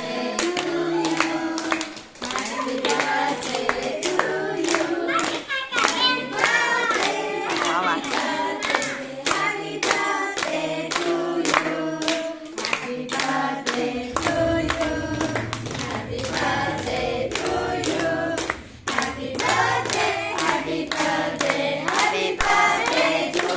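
A group of children and adults singing a birthday song together, clapping along in a steady rhythm, with short breaks in the singing about two seconds in and again near nineteen seconds.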